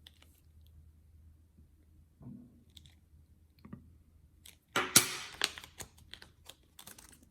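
Peace silver dollars being handled and taken out of their packaging: a few faint clicks, then a burst of sharp clicks and rustling about five seconds in.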